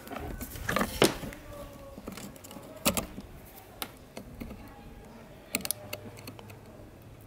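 Scattered small clicks and taps of a soldering iron and wires being worked against the metal terminals of an old fan's push-button switch, the sharpest about a second in, then again around three seconds and a quick cluster past five seconds.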